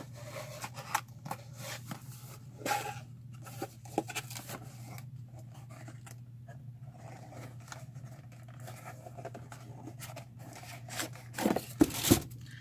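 Rustling, scraping and tearing of packaging as two ceramic mugs are unwrapped from their box, with a couple of sharp knocks near the end as a mug is handled.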